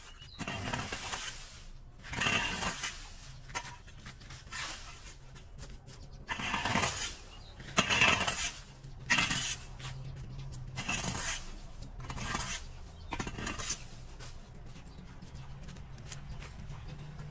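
Metal fan rake scraping over a concrete pavement and dragging dry leaves, in repeated short strokes about one every second or two, which thin out in the last few seconds.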